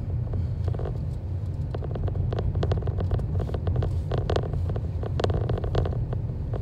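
Car cabin noise while driving: a steady low rumble of road and engine, with short bursts of rattling clicks a few times.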